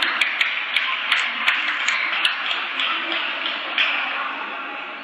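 Table tennis balls clicking: a quick run of sharp ticks, roughly three a second, over the first two or so seconds, then fainter, over the steady murmur of a large sports hall.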